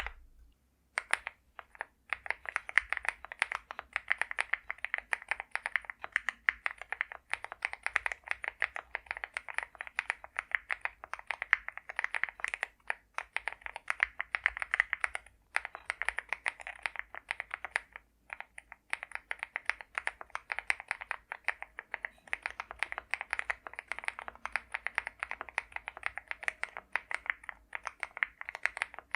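Fast, continuous typing on an Akko MOD006 custom mechanical keyboard with lubed Akko CS Crystal Silver linear switches, tape-modded, and PBT cherry-profile keycaps, giving a poppy keystroke sound. It starts about a second in, with a couple of short pauses.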